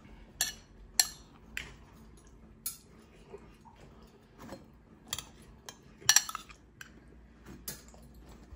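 A serving spoon clinking and scraping against a plate and serving dish while mash and vegetables are spooned out: sharp, irregular clinks, the loudest cluster about six seconds in.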